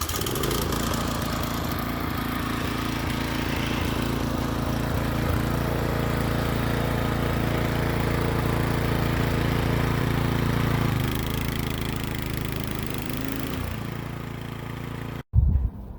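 Toro TimeMaster lawn mower engine running steadily. It eases off slightly about eleven seconds in, then the sound cuts off abruptly near the end.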